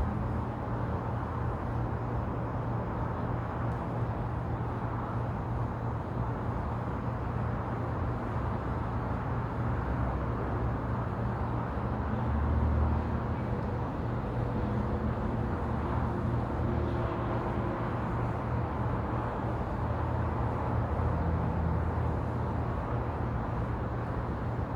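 Steady outdoor rush of wind and distant road traffic, with a vehicle passing and swelling briefly about halfway through.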